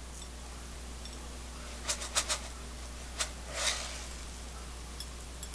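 Sesame seeds shaken from a glass jar over food: a few short rattles about two seconds in, then a longer rustle, over a low steady hum.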